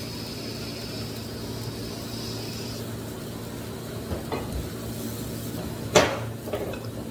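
AC TIG welding arc on thin aluminium, a steady high-pitched whine over the welder's low hum, which stops about three seconds in as the weld ends. A few light knocks follow, then a sharp clank about six seconds in.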